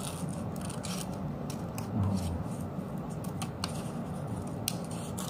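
Scissors snipping through bond paper in a run of short, irregularly spaced cuts as a paper letter shape is trimmed.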